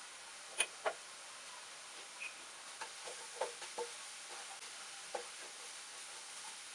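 A metal spoon taps twice on a non-stick pan, then a spatula knocks and scrapes a few times while stirring chopped onions, over a faint steady hiss.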